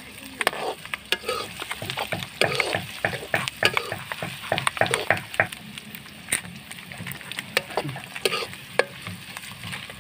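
Plastic-and-foil spice sachets crinkling and being torn open by hand, a dense run of irregular sharp crackles.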